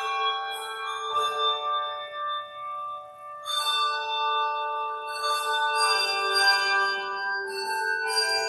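Tuned handbells playing a melody in chords, each note ringing on and overlapping the next. The ringing thins out briefly about two and a half seconds in, then comes back in full.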